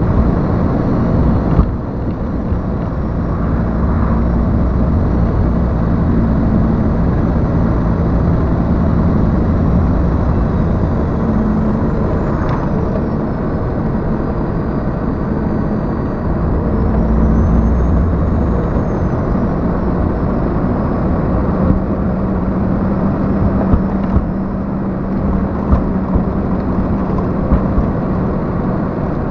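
Heavy truck driving, heard from inside its cab: a steady diesel engine drone with road noise, the engine note shifting a few times, and a few light knocks near the end.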